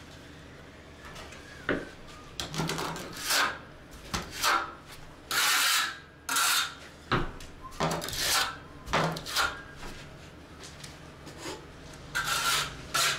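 Steel trowel scraping and spreading tile mortar: about a dozen short scraping strokes, unevenly spaced, with a pause of a couple of seconds before two more near the end.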